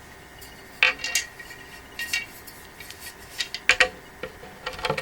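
Scattered sharp clinks and knocks of small metal screws and the stand's steel supports being handled against the wooden panels during assembly, coming more often near the end.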